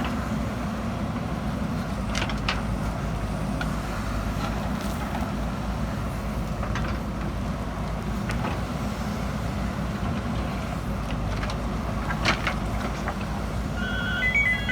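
JCB backhoe loader's diesel engine running steadily, with a few sharp knocks scattered through. A few short high tones near the end.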